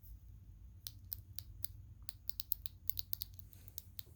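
Sinn 105 UTC wristwatch clicking as it is handled: a quick, irregular run of small, sharp clicks from about a second in until just before the end. The owner counts clicking like this from the bezel and clasp as a build-quality fault.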